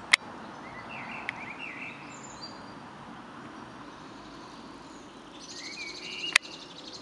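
Birds chirping over a steady outdoor hiss, with a fast, high pulsing trill in the last couple of seconds. Two sharp clicks, one just after the start and one a little past six seconds in, are the loudest sounds.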